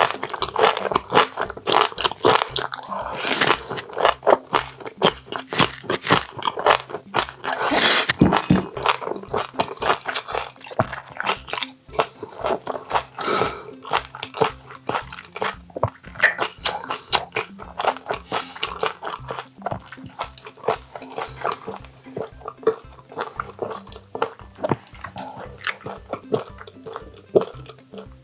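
Close-miked chewing and biting of boiled baby octopus full of roe: many quick, wet, crunchy mouth sounds. Background music with a steady beat plays underneath.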